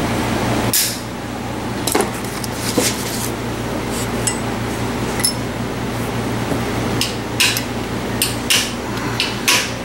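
Small hand tools clinking against a Honda CB450's bare engine crankcase while a small fastener is worked with an Allen key: about ten sharp metal clicks at irregular intervals, over a steady low hum of a shop fan.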